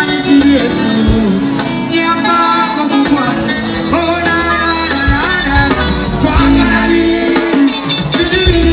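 Live band music with a male lead singer: a danceable Ugandan pop song played on electric guitars, keyboards, bass and drums, with the bass getting heavier about halfway through.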